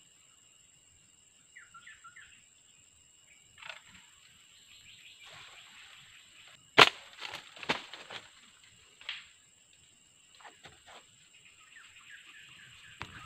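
A slingshot shot: one sharp, loud snap about seven seconds in, followed by a few smaller knocks and rustles in the foliage over the next two seconds. A few short descending bird chirps come about two seconds in, over a steady high whine.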